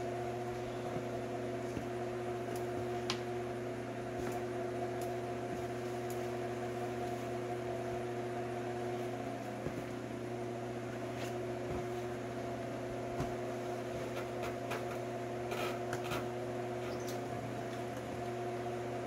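Electric fan running with a steady hum. A few light clicks and knocks come from a car door trim panel being handled and pressed onto the door.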